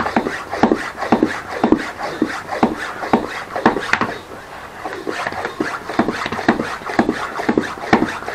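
Bicycle pump worked in steady strokes, about two a second, inflating the inner tube to seat a newly mounted tyre, with a short pause around four seconds in.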